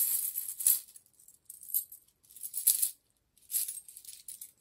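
A handful of metal game coins clinking and jingling as they are shaken in a drawstring pouch and tipped out into a hand, in about four short bursts.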